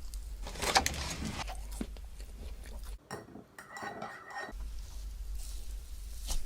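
Close-miked ASMR eating sounds: a utensil clicking against a dish, with biting and chewing. About three seconds in, the sound turns duller and muffled for a second or so.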